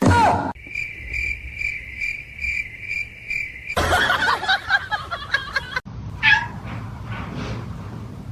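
A steady high-pitched tone pulsing about two and a half times a second for about three seconds. Then comes a short busy, noisy stretch, then a cat meowing faintly a couple of times.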